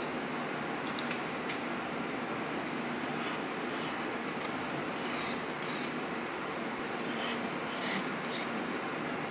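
Short scratchy strokes of dry, unfired clay being scraped and smoothed on a small cup, a dusty job, about a dozen strokes spread irregularly over a steady background hiss.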